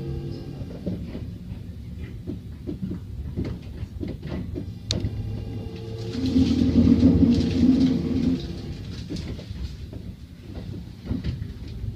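Kintetsu electric train running along the track, with scattered clicks from the wheels and a steady low drone that swells for about two seconds in the middle.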